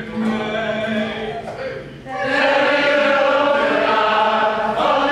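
A man's voice over a steady low tone, then about two seconds in an amateur choir starts singing together in long, held notes.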